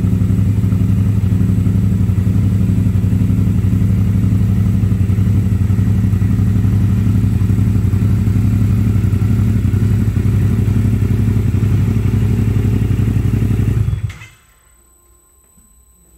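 Yamaha MT-07's parallel-twin engine running steadily through an Akrapovic exhaust, at an even idle with no revving, then switched off about two seconds before the end.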